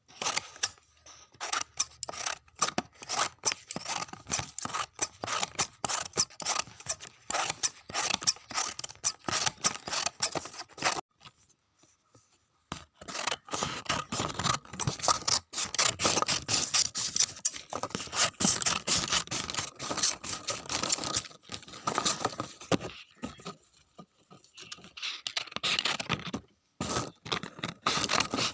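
Paper being torn over and over, a dense crackly ripping and rustling in long runs, with a pause about eleven seconds in and shorter breaks near the end.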